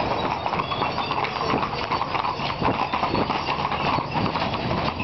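Hooves of a four-horse carriage team clip-clopping steadily on hard pavement.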